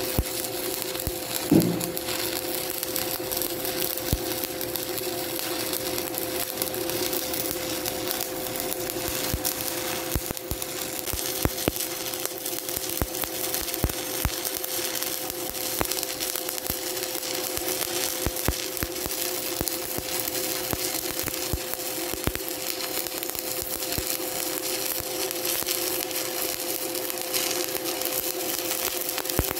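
Stick (SMAW) welding arc, a 1/8-inch electrode on DC reverse polarity, burning steadily in a vertical-up weld: a continuous crackle with a scatter of small pops and a steady hum underneath, and one louder pop about a second and a half in.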